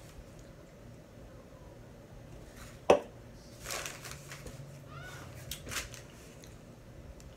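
Objects handled on a kitchen countertop: one sharp knock about three seconds in, then a few soft rustles of paper.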